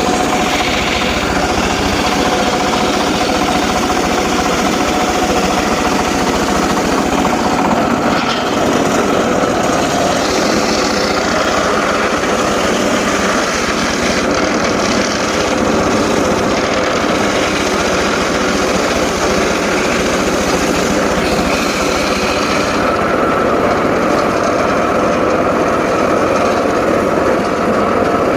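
Engine-driven saw running loud and steady, with a few shifts in pitch.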